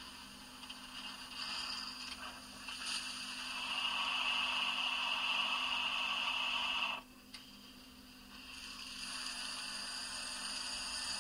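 Sound decoder of a Jouef 140 C H0 model steam locomotive playing its injector effect (function F10) through the model's small speaker: a hiss that builds for a few seconds, cuts off suddenly about seven seconds in, then starts again about a second and a half later, over a faint steady hum.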